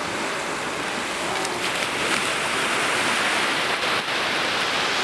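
Steady rushing noise of surf breaking on the beach, swelling a little partway through.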